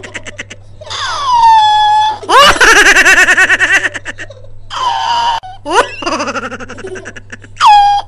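A high-pitched voice laughing and squealing in several bursts. Some bursts are quick pulsed giggles, others long squeals sweeping up or down in pitch, with a rising squeal near the end.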